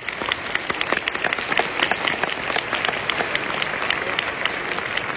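Audience breaking into applause, many hands clapping together in a dense, steady patter.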